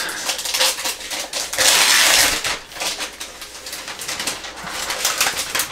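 Translucent plastic protective sleeve being pulled off a new foldable PC, crinkling and rustling, with a longer, louder swish about two seconds in.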